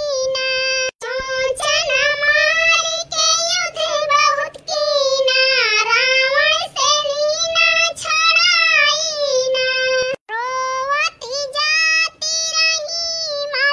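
A high-pitched voice singing a melodic song, in phrases with short pauses between them, with no beat. It is a song sung while weeding a field.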